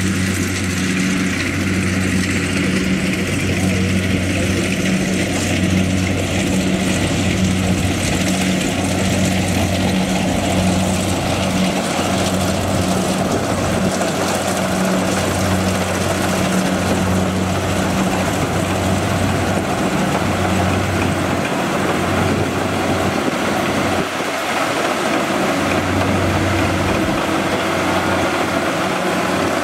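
Kubota rice combine harvester's diesel engine running steadily under load while cutting and threshing rice, with a continuous low drone and the whir of the threshing machinery.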